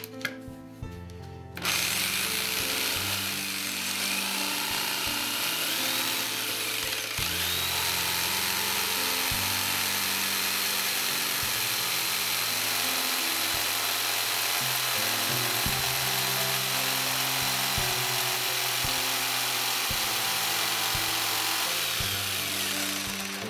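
Electric jigsaw cutting through an MDF board, steady cutting noise that starts about two seconds in and stops near the end, cutting out a rectangular opening for a router plate insert. Background music plays underneath.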